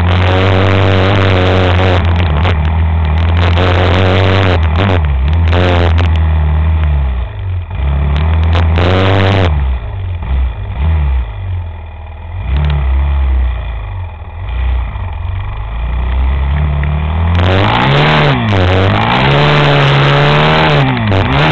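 A vehicle engine running and changing speed. It holds steady at first, drops lower and quieter through the middle, then revs up and down again near the end.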